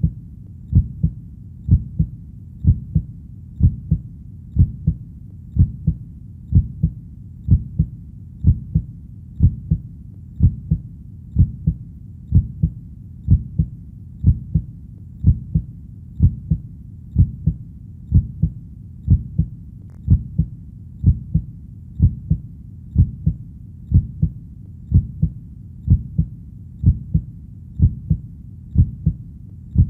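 Heartbeat sound: a low, steady lub-dub double thump repeating about once a second.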